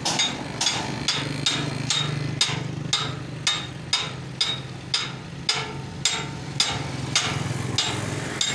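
Steady hammering on a steel trailer frame: a hammer strikes metal about twice a second, each blow ringing briefly, over a low steady hum.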